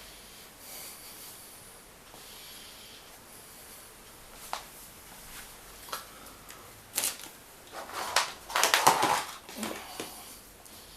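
Handling noises from working on an amplifier: scattered sharp clicks and knocks, then a short burst of rattling clatter about nine seconds in.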